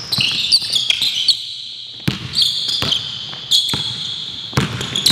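A basketball being dribbled on a hardwood gym floor, with irregular bounces, mixed with frequent high-pitched sneaker squeaks as players cut and shuffle.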